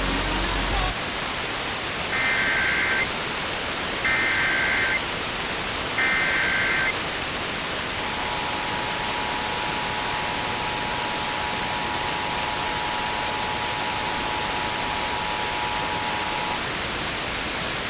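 Emergency Alert System test transmission over a radio broadcast. First come three one-second bursts of the SAME digital header, a warbling high-pitched data screech repeated with a pause between each. Then the two-tone EAS attention signal holds steady for about eight and a half seconds and cuts off. A constant radio static hiss runs underneath.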